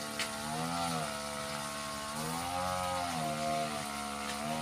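A small engine running steadily, its pitch drifting slowly up and down, with a light click just after the start.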